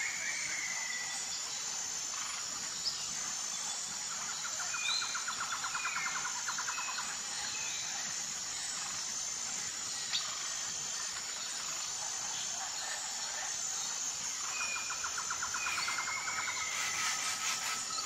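Outdoor nature ambience: a steady, high-pitched chirring of insects, with birds calling in short falling whistles and two rapid trills a few seconds long, the first starting about four seconds in and the second near the end.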